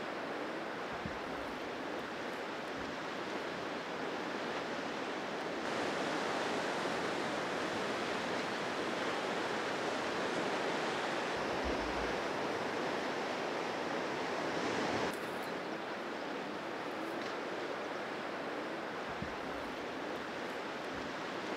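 Sea waves surging and washing over a rocky shore, a steady rush of surf that grows louder about six seconds in and drops back about fifteen seconds in.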